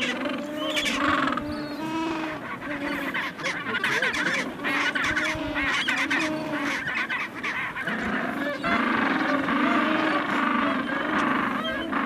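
Gentoo penguin colony calling: many overlapping calls from adults and chicks, becoming denser and louder about two-thirds of the way in.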